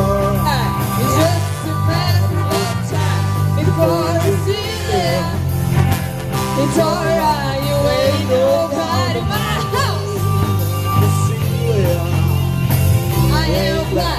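Rock band playing a song: a singer's voice over steady bass notes and drums.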